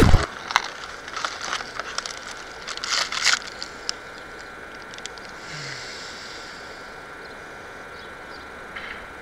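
Plastic protein bar wrapper crinkling and being torn open in a quick run of short rustles and clicks, loudest about three seconds in.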